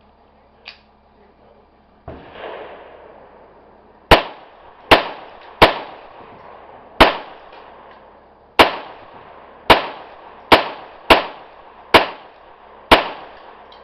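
A Browning Buck Mark Camper URX .22 LR semi-automatic pistol firing ten shots at an uneven pace, each a sharp crack with a short echoing tail. A duller thump comes about two seconds before the first shot.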